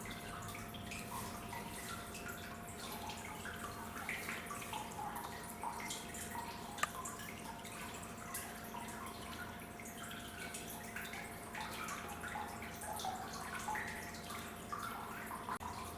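Faint scattered dripping and small clicks of water over a steady low hum and a thin steady tone, as in a small enclosed room.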